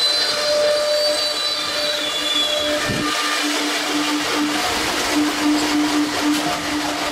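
Multi-spindle CNC wood router cutting particleboard, with one spindle and bit lowered into the board. There is a steady hum with a hissing cutting noise over it, and a higher whine in the first few seconds fades out.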